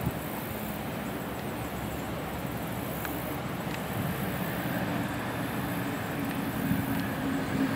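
Road traffic passing: a steady hum of car and truck engines and tyres, with one low engine drone growing louder over the last few seconds.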